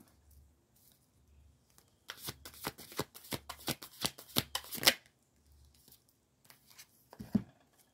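A deck of tarot cards being shuffled by hand: a quick run of card flicks lasting about three seconds, with a few more card sounds near the end.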